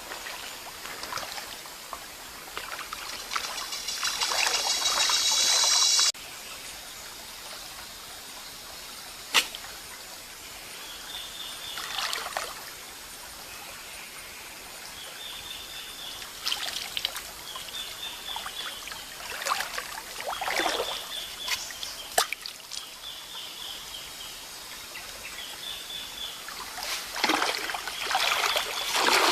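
Shallow stream water splashing and sloshing as someone wades and jabs a bamboo stick into it. The splashing is busy and loud for the first few seconds, breaks off abruptly, and then comes as separate splashes every few seconds.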